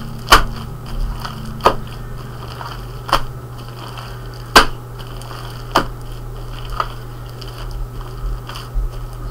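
Fluffy slime being kneaded and pulled apart by hand, giving sharp wet pops and clicks about every second or so as it sticks and tears, over a steady low hum.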